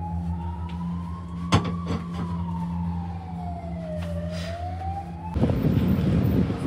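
A siren wailing, its pitch slowly rising and falling, over a steady low hum. About five seconds in, a louder rumble takes over.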